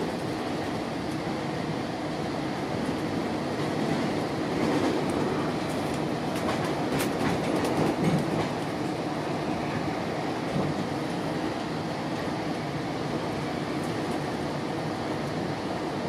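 GO Transit commuter train heard from inside the passenger coach: a steady rumble of wheels on rail that grows louder about four to eight seconds in, with a few sharp clicks from the track around then.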